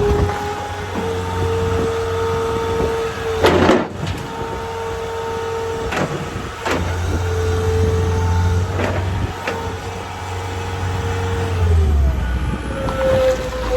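John Deere 320D diesel skid steer running, its engine humming under a steady whine, with several sharp clunks. The engine note shifts about 12 seconds in.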